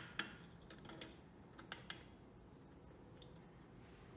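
A few light, scattered clicks and taps of metal parts being handled as an oil pump pickup is fitted into an aluminium engine crankcase, over near silence.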